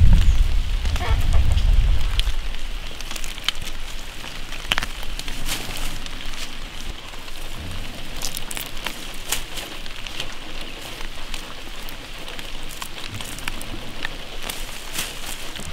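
Fresh cilantro being picked by hand: leaves rustling and stems snapping, heard as light, irregular crackles and ticks. A low rumble comes first and fades out after about two seconds.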